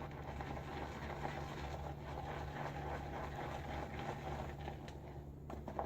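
Badger shaving brush whipping L'Occitane Cade rich cream into a thick lather, a steady wet swishing and churning of the brush knots through the cream, with a few faint clicks near the end.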